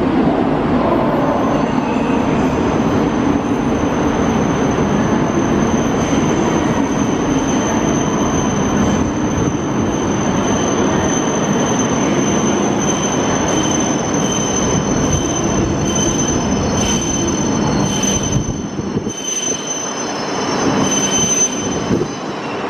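Tohoku Shinkansen E5 series train pulling into the platform and braking, a steady rushing rumble with a thin, high steady squeal over it. The rumble thins out near the end as the train slows alongside the platform.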